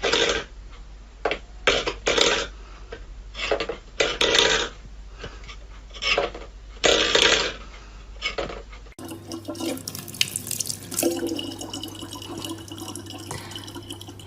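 Water splashing in a series of short bursts, then, after a change of scene about nine seconds in, water running steadily over a low hum.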